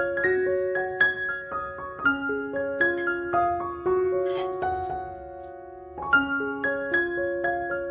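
Background piano music: a gentle melody of single struck notes that settles into a held, fading note near the middle before picking up again.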